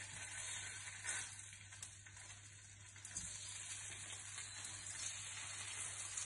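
Sliced boiled potatoes frying in a pan of hot oil and ghee: a steady sizzling hiss as the slices are laid in.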